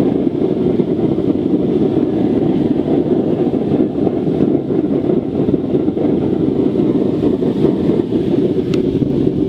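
Forced-air waste oil burner firing into a dirt furnace at full heat: a loud, steady roar of flame and blown air.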